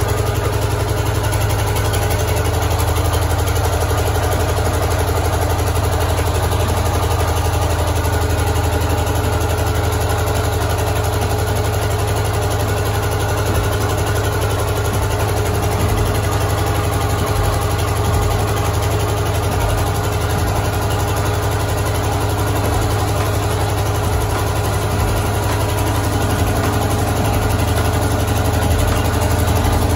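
Water pump's motor running steadily with a constant low hum, circulating water for borewell drilling.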